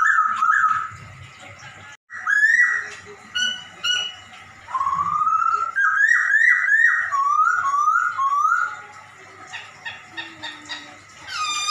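A Poksay Hongkong (Chinese hwamei) singing in phrases of loud whistled, cat-like mewing notes that slur up and down, with short gaps between phrases. Near the end comes one longer mew that dips and then rises.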